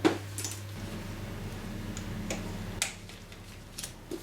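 Sharp clicks and taps of a screwdriver and screws as T25 Torx trim screws are removed from plastic motorcycle side trim. A low steady hum runs for about two seconds in the first half.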